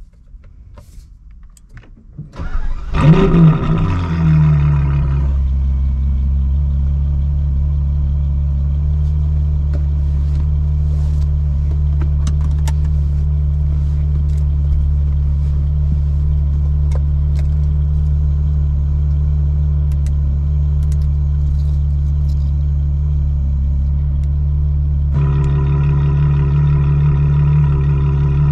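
Ferrari 812 GTS's 6.5-litre V12 with a Novitec exhaust starting up: it catches about two seconds in with a loud flare of revs, then settles into a steady idle. Near the end the idle note turns brighter and a little louder.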